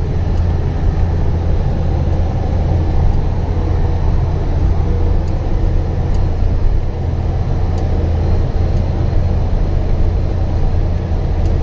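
Truck engine running as the truck drives on a rough dirt road, heard from inside the cab: a steady low drone with a few faint clicks.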